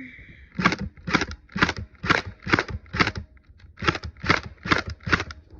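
Gel-ball (Orbeez) blaster firing single semi-automatic shots, about ten sharp cracks at roughly two a second, with a brief pause a little past halfway.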